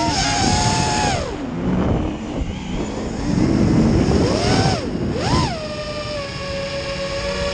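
FPV racing quadcopter's electric motors whining, heard from the onboard camera with wind rushing over it. The pitch drops as the throttle is cut about a second in, rises and falls sharply with a quick throttle punch around five seconds in, then settles to a steady whine.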